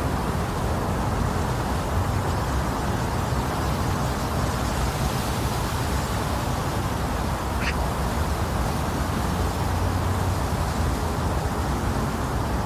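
Steady, low-pitched white noise with a deep rumble, made to imitate the sound of the womb. A faint short blip comes a little past the middle.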